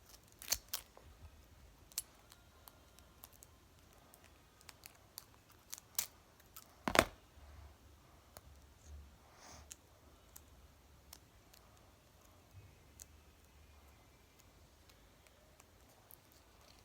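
Scattered small clicks and snips of hands working sticky tape and scissors around a paper squishy, with one louder click about seven seconds in.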